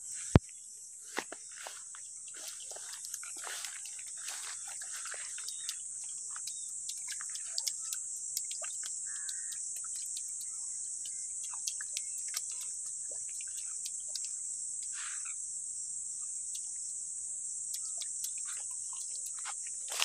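Insects chirring in a steady, high-pitched drone, with scattered sharp clicks over it.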